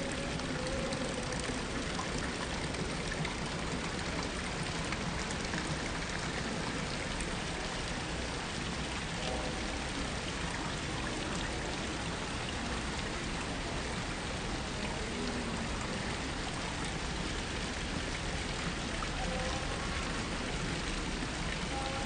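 Water splashing and trickling steadily from tiered garden fountains.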